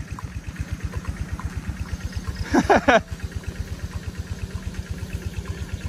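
Small engine idling with a steady, fast low putter. A short voice call cuts in briefly about two and a half seconds in.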